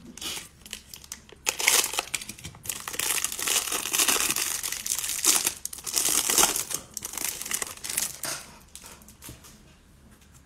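Clear plastic wrapper on a stack of football trading cards crinkling as it is torn open and pulled off, in a run of loud crinkles that die down near the end.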